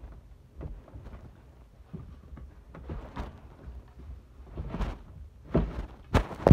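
Handling and movement noise: scattered soft knocks and rustling as the phone is held and shifted, with louder bumps and rustling near the end.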